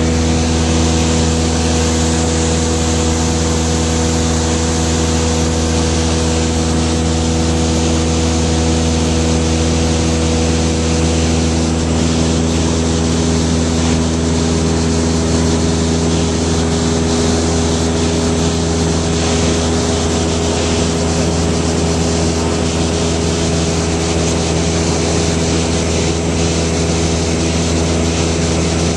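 Light high-wing aircraft's engine and propeller droning steadily in flight, heard from inside the cabin: a constant low hum with several steady tones above it and a rush of air noise.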